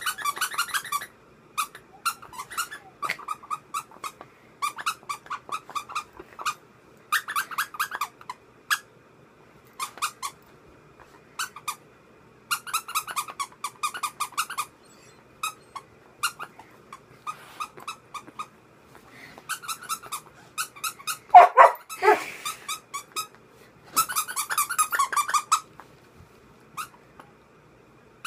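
A broken rubber squeaky toy squeezed over and over in bursts of about a second, giving a rasping, clicking squeak instead of a clean one, because its squeaker is broken. About 21 seconds in the puppy gives one loud call, the loudest sound in the stretch.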